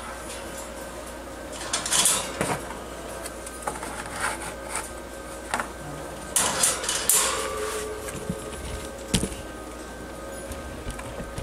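Scattered clatters and rustles of a wire-mesh cage and a cardboard tray, as the tray of pomegranate flowers goes onto the cage floor and sugar gliders move about on it. Clusters come about two seconds in, again around six to seven seconds in, and once more near nine seconds, over a faint steady hum.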